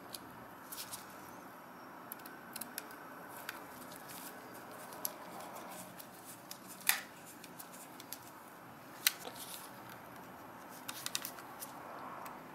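Precision screwdriver turning a tiny screw in the plastic battery compartment of a Canon PowerShot A490 camera: sporadic light metallic clicks and scrapes, with two sharper clicks about halfway and about three-quarters through, over a faint steady hiss.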